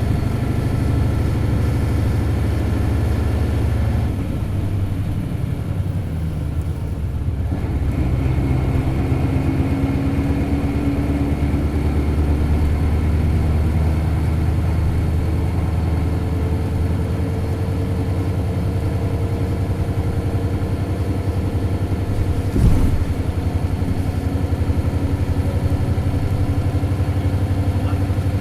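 Isuzu Cubic bus's 8PE1-S V8 diesel engine heard from inside the cabin under way. It eases off about four seconds in, then pulls hard again, rising in pitch as the bus accelerates. A single sharp thump comes about two-thirds of the way through.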